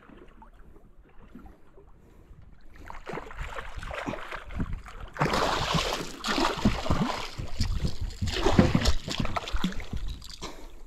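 A hooked fish thrashing and splashing at the surface beside a small boat as it is reeled in. The splashing builds from about three seconds in and comes in two loud bursts, around five to seven seconds and again around eight to nine seconds.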